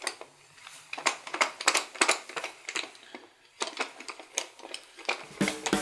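Wooden hand screw clamp spun by its handles to wind the jaws along their threaded spindles: a fast, irregular clatter of wooden clicks and knocks, with a brief pause about three seconds in.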